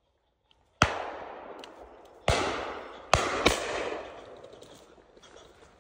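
Four shotgun shots, the last two fired in quick succession, each followed by a long echo dying away.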